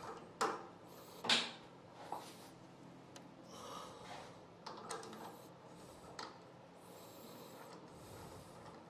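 Faint handling knocks and rubbing as a maple box blank is worked out of and turned around in a metal scroll chuck on a stopped lathe. There are a few short knocks, the loudest about a second in.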